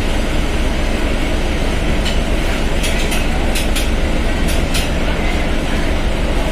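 Mercedes-Benz OF1721 BlueTec 5 bus diesel engine running with a steady low drone. A quick run of sharp clicks and knocks sounds through the middle.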